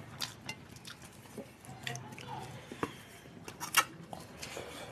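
Scattered clinks and light taps of stainless steel plates and a steel bowl as rice and curry are eaten by hand, with one sharper clink a little before the end.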